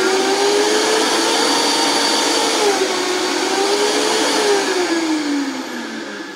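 Countertop blender motor running at high speed, blending a thick dressing of avocado, buttermilk and fresh herbs. The motor's pitch wavers, then drops as it winds down near the end; the mix is thick enough that the herbs need tamping down.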